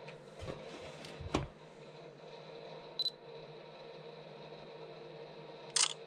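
Digital camera taking a photo: a short high beep about three seconds in, then a sharp shutter click near the end. A couple of soft handling knocks come about a second in.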